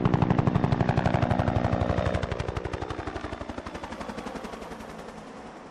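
UH-1 Huey helicopters' two-bladed main rotors beating in a rapid, even blade slap, about ten beats a second. The beat fades steadily from about two seconds in as the helicopters pass away.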